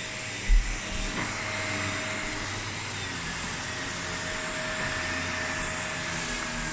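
Vacuum cleaner running steadily with a constant whine, with a short low bump about half a second in.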